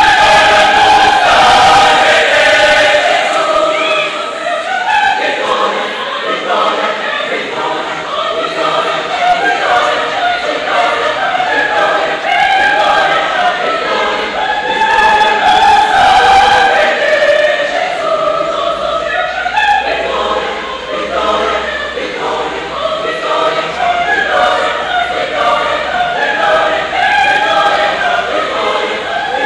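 A large mixed choir of young men and women singing a sacred choral piece, several voices together without pause.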